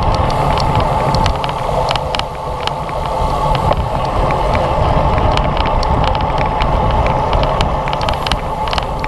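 Wind rushing over a bicycle-mounted GoPro's microphone at racing speed, over road and tyre noise with a steady hum, broken by many scattered sharp clicks and rattles.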